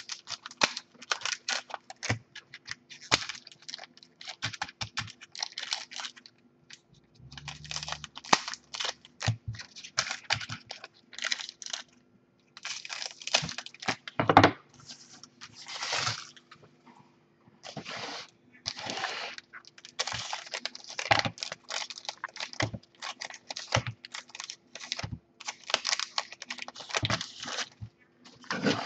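Trading-card pack wrappers being snipped open with scissors and handled, with the cards shuffled on a table: a quick, irregular run of clicks, snips and crinkles.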